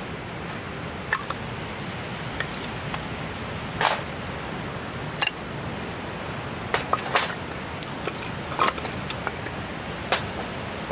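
Split firewood pieces being set down into a metal fire pit bowl, knocking against the bowl and against each other in a series of irregular sharp clunks, over a steady rush of background noise.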